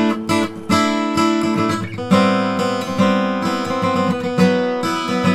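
Acoustic guitar music, chords strummed in a steady run.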